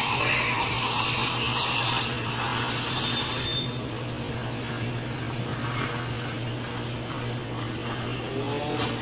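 Espresso machine steam wand hissing into milk in a stainless steel pitcher: loud at first, then quieter and duller after about three seconds, over a steady low machine hum.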